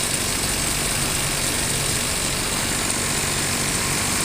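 Small two-stroke power-sprayer engine running steadily.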